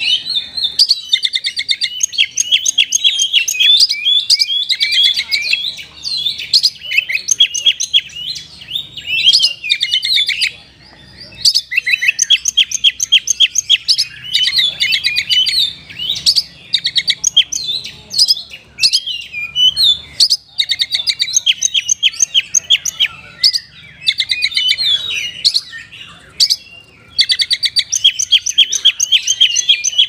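Oriental magpie-robin (kacer) singing hard: a loud, varied song of rapid repeated whistles and trills, with brief pauses about ten and twenty seconds in.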